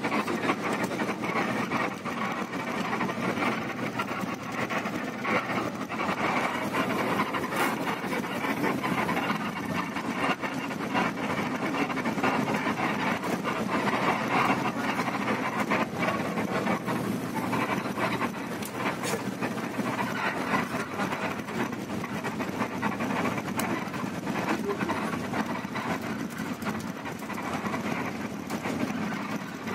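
Intercity coach heard from inside the cabin while driving: steady engine and road noise, with frequent small rattles and knocks from the body and fittings.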